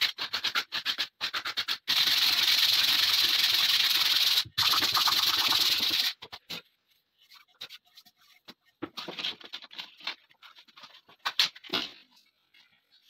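Hand sanding block rubbing over the bare wood of a new shotgun butt: quick back-and-forth strokes, then steady continuous sanding. The sanding stops about six seconds in, followed by a few light knocks and clicks as the wood and block are handled and set down.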